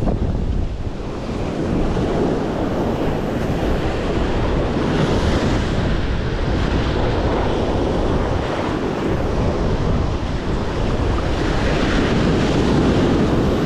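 Ocean surf breaking and foaming up the beach, with wind buffeting the microphone in a steady low rumble.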